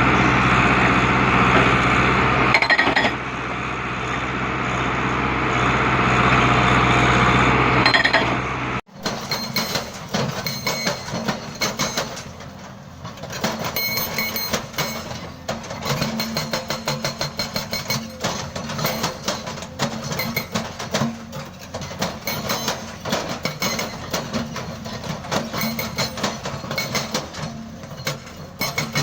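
A heavy machine runs steadily for about nine seconds. Then, after a sudden cut, a hydraulic breaker on a small excavator hammers reinforced concrete: rapid, repeated metal-on-concrete impacts over the running engine.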